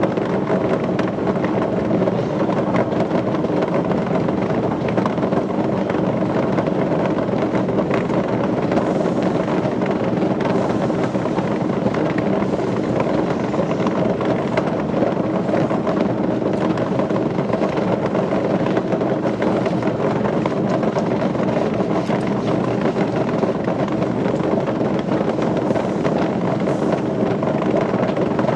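Steady drone of running machinery, holding several fixed tones at an even level.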